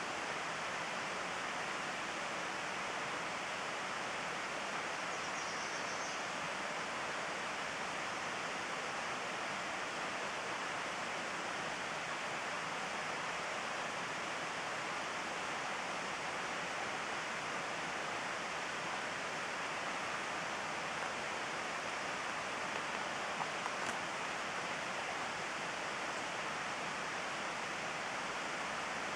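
Steady, even rushing noise with no changes in level, with a faint short high note about five seconds in.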